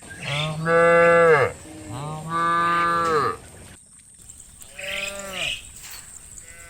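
Cows mooing: two long, loud moos back to back, then a fainter, higher-pitched call about five seconds in.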